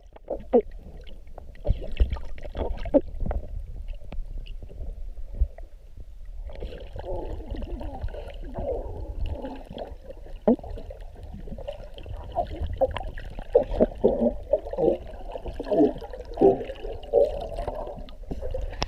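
Lake trout burping underwater, letting air out of its swim bladder in short gurgling pops, heard through an underwater camera. The pops are scattered at first, then come thick and fast from about a third of the way in.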